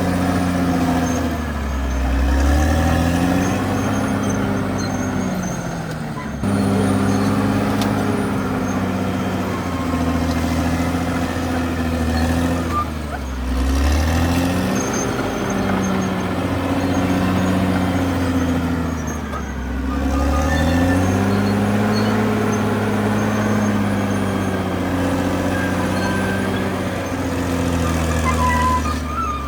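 CAT D6R XL bulldozer's diesel engine running hard, its pitch dipping and climbing back again about four times as it is loaded and eased.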